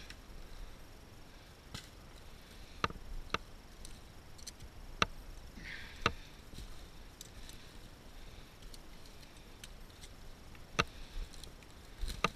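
Dry branches and sticks cracking in logging slash, a handful of separate sharp snaps several seconds apart.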